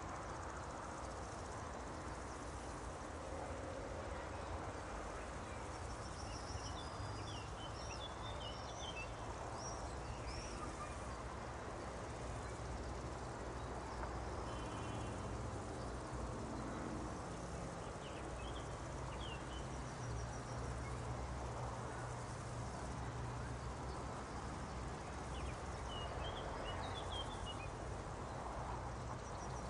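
Meadow nature ambience: a steady outdoor background hiss with faint, scattered bird chirps and a few brief insect trills.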